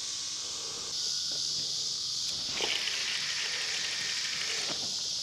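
Steady, high-pitched chorus of insects chirring, growing louder about a second in.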